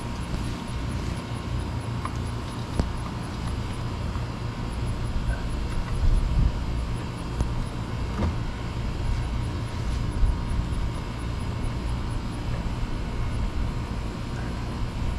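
Steady, fluctuating low rumble of wind on the microphone outdoors, with a few brief faint knocks and rustles from handling the tomato plants.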